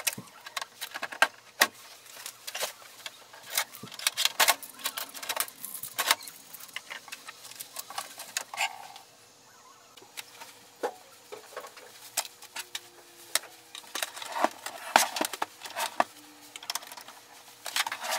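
Packing tape and plastic wrapping being peeled and pulled out of a new HP Envy 7155 printer, with irregular crinkling, rustling and sharp clicks and knocks as its plastic lid and body are handled. The sounds thin out briefly about halfway through.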